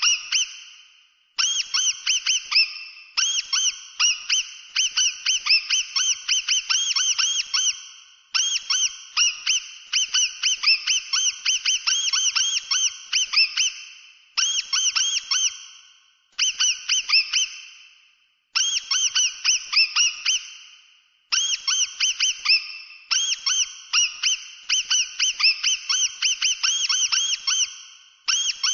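Mouse squeaking: rapid, high-pitched squeaks, each rising and falling in pitch, coming several a second in runs of one to three seconds with short pauses between them.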